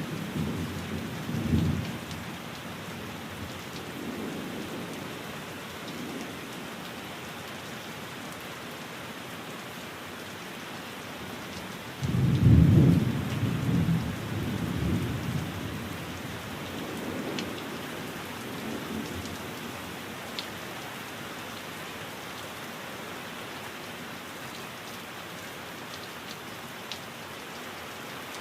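Steady rain with rolling thunder. A few low rumbles at the start, then the loudest roll of thunder about twelve seconds in, followed by fainter rumbles that die away under the constant rain.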